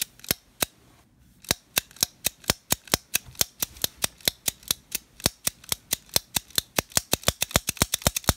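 Taurus Model 82 .38 Special revolver dry-fired double action over and over: a run of sharp metallic clicks from the hammer and lockwork, several a second, coming a little faster near the end.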